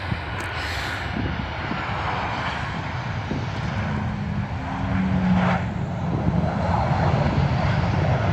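Jet airliner's engines as it comes in to land in a gusty crosswind: a steady rushing engine noise that grows a little louder toward the end.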